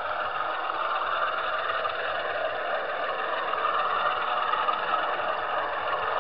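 Model train running along the track, heard from a camera riding on a wagon: a steady running noise of metal wheels on the rails and the locomotive's small electric motor.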